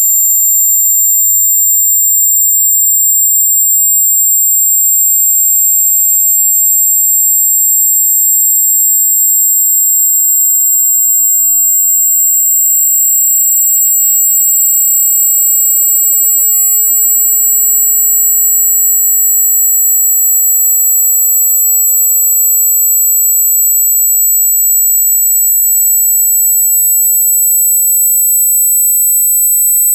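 A loud, high-pitched sine-wave test tone around 8 kHz, rising very slowly in pitch, with a second tone about an octave higher. It is part of a slow frequency sweep (1 to 21199 Hz) meant for exercising and testing loudspeakers.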